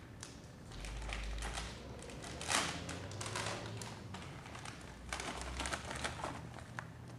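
Plastic Oreo cookie package crinkling and rustling as it is handled and opened, with light irregular taps and clicks.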